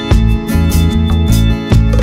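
Background music: a song with guitar over a steady beat.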